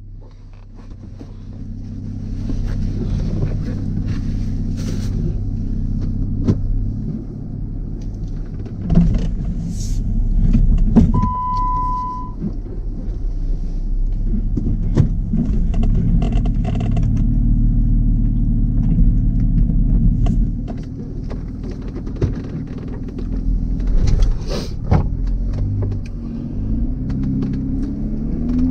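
A Jeep's engine running under load on an off-road trail climb, with scattered knocks and clatters over the steady low rumble. About eleven seconds in there is a single one-second beep.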